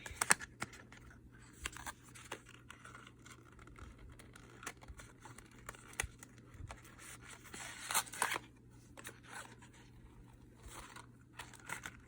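Packaging and small cosmetic products being handled: irregular rustling and scraping with light clicks and taps, the loudest about a third of a second in and around eight seconds in.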